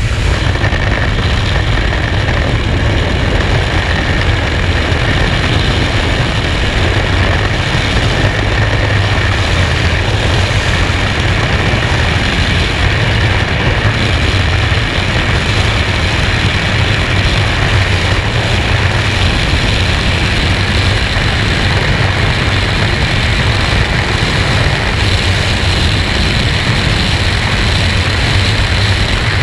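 Skydiving freefall wind rushing over the camera's microphone: a loud, steady rush of air, heaviest in the low end, with no change in level.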